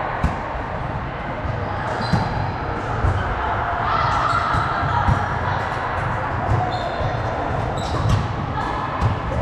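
A volleyball being struck and bouncing on a gym floor during play: about half a dozen sharp thuds, irregularly spaced a second or more apart, echoing in a large hall over a steady background of players' voices.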